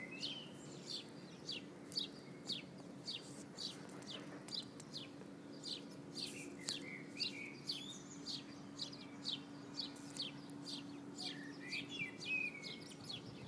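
Small birds chirping: short, high chirps repeated two or three times a second, with a few lower warbling calls mixed in. A faint steady hum runs underneath.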